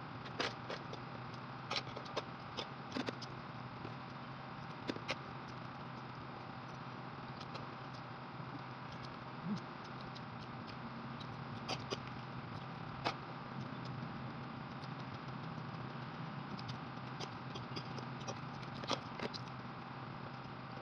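Spoon and fork clinking and scraping against a plate of rice in sharp, irregular clicks, over a steady background hum.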